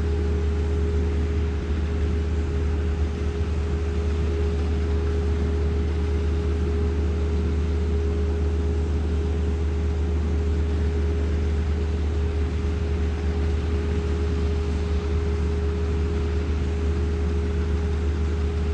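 Grain-handling machinery running steadily: a loud, even drone with a constant mid-pitched hum and no change in speed.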